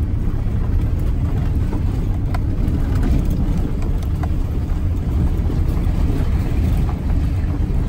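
Pickup truck driving on a dirt road, heard from inside the cab: a steady low rumble of engine and tyres.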